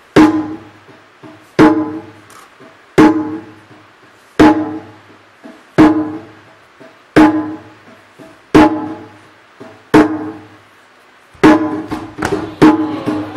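A drum struck in a slow, even beat, about one stroke every second and a half, each stroke ringing with a pitched tone. Near the end the strokes quicken into a faster run.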